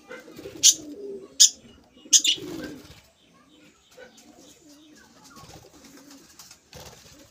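Aviary birds calling: three sharp, short budgerigar chirps in the first couple of seconds over low, wavering cooing that goes on throughout.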